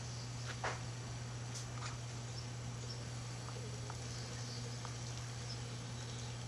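Steady low hum of a honeybee swarm clustered in a tree, with a few short chirps and clicks, the loudest just under a second in.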